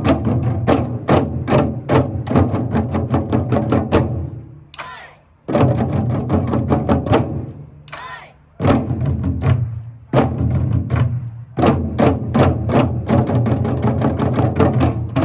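Korean janggu hourglass drums played by an ensemble in fast, driving rhythms of many strikes a second. The playing drops off briefly twice, at about four and a half and eight seconds, then comes back in at full force.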